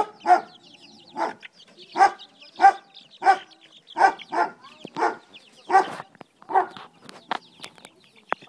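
A dog barking over and over, about a dozen short barks at a bit more than one a second, with faint high peeping of chicks behind.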